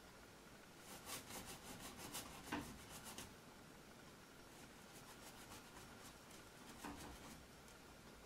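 Faint scratchy strokes of a paintbrush rubbing on stretched canvas, in a cluster about a second in and again past the middle.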